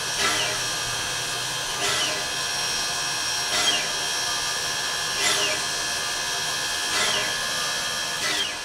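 1923 ALCO 2-6-0 steam locomotive standing at rest: a steady high whine and hiss, with a short falling whoosh repeating about every second and a half to two seconds, six times.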